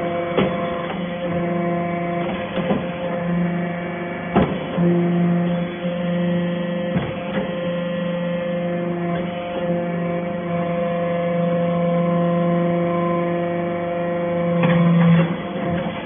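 Hydraulic metal shavings baler running, its pump motor giving a steady hum, with a few sharp knocks scattered through.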